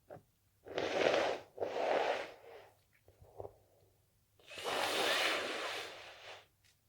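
A person's heavy breathing and sniffing through the nose in the middle of a sneezing fit. There are two strong breaths about a second apart, a few faint short sniffs, then one longer breath lasting nearly two seconds.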